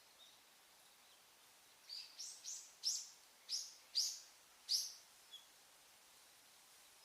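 A small bird singing: a run of about seven short, bright chirps, each sliding down in pitch, from about two seconds in to about five seconds in, with a faint last note just after.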